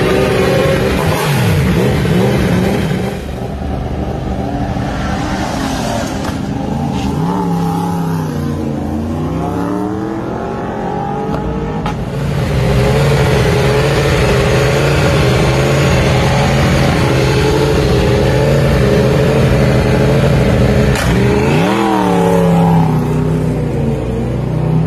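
Superbike racing motorcycle engines running, mostly at a steady idle, with the revs dipping and climbing again twice, a little before halfway and near the end. The sound gets louder about halfway through.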